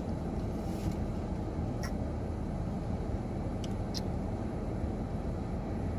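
Steady low rumble inside a parked car's cabin, with a few faint clicks.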